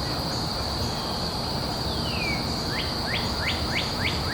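Outdoor ambience: an insect's steady high trill under a light hiss, with a bird calling. The bird gives one falling note about halfway through, then a quick series of short rising chirps, about three a second.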